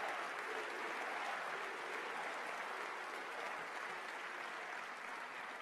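Audience applauding steadily, slowly dying away toward the end.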